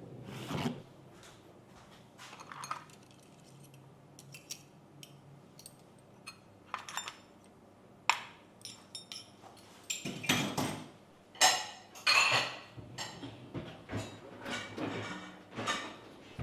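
Dishes and utensils being handled: light clinks and knocks spaced out, then a busier, louder clatter about ten to thirteen seconds in.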